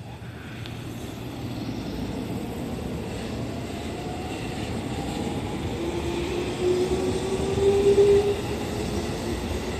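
JR 313 series electric multiple unit pulling away from the platform and accelerating past. Its electric traction motors give a whine that comes in about six seconds in and slowly rises in pitch over the rumble of the wheels, growing louder as the cars go by.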